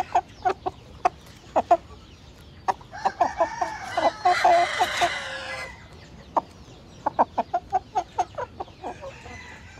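Rooster clucking in a string of short, quick notes, with a louder, raspy crow of about two and a half seconds starting about three seconds in.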